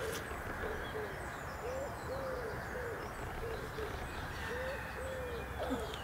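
A run of soft animal calls: short notes that rise and fall in pitch, about two a second, over a steady outdoor hiss.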